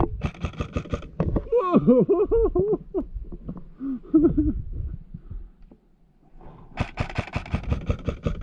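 Airsoft rifle fire: a short burst of rapid shots right at the start and a longer burst near the end.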